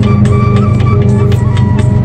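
Background music with a steady beat, a melody line over it and a deep sustained bass.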